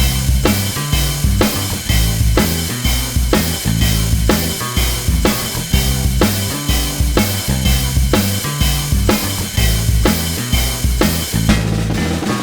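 Background music with a steady drum-kit beat, bass drum and guitar.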